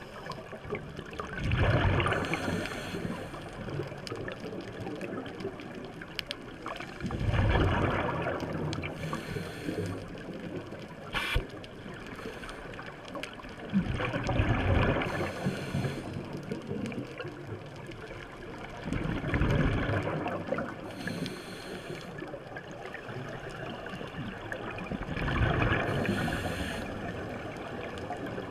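Scuba breathing through a regulator underwater: exhaled bubbles gurgle out in five bursts, about one every six seconds, over a steady quieter water background. A sharp click sounds about eleven seconds in.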